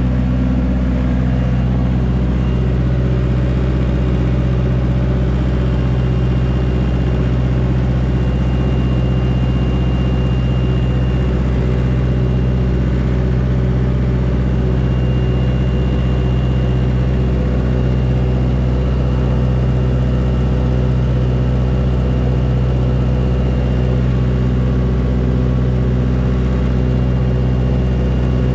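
2007 Ingersoll Rand G25 21 kW diesel generator running steadily at constant speed, its engine note unchanging.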